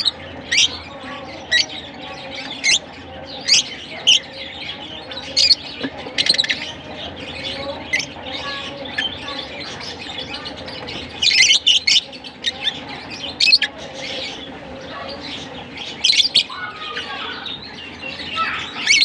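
A flock of lovebirds, mostly masked lovebirds, chirping: short, sharp high calls every second or so over a steady low chatter, with busier bursts of calling about eleven seconds in and again near the end.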